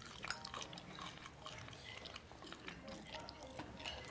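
Faint eating sounds: a person chewing food, with a few light clicks of a fork on a plate, the sharpest just after the start.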